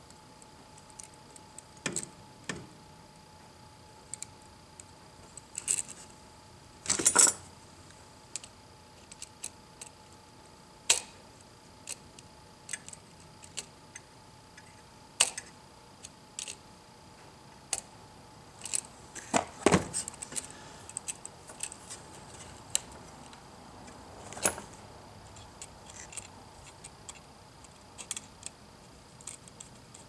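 Small metallic clicks and clinks from working on a duplex electrical receptacle: wire being hooked onto its brass terminal screws and a screwdriver turning and tightening them. The clicks come irregularly, with louder clusters about seven seconds in and again around twenty seconds in.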